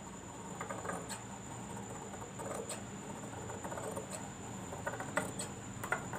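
Large tailor's scissors cutting through cloth: scratchy snipping and cloth rustling, with a few sharper snips near the end.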